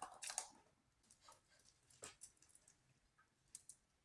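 Near silence with a few faint clicks and soft rustles of food being handled in a pan.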